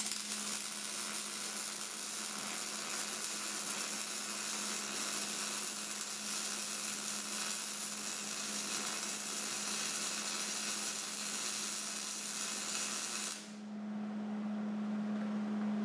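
Welding arc laying a stitch weld on a spliced steel truck frame rail: a steady crackling hiss that cuts off suddenly about thirteen seconds in, over a steady low hum.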